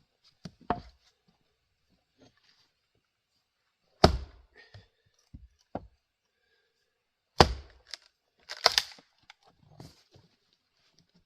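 Axe blows splitting grand fir rounds: a lighter strike near the start, two heavy chops a few seconds apart, then a quick pair of hits, with fainter wooden knocks between them.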